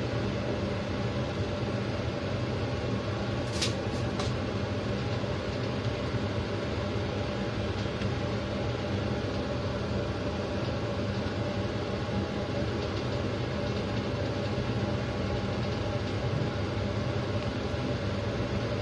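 Steady mechanical hum and rumble, with a few light clicks about four seconds in.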